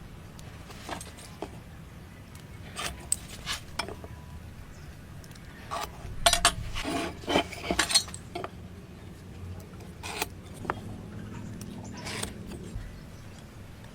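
Scattered light clicks, clinks and scrapes of hard objects being handled, busiest about six to eight seconds in, over a low steady hum.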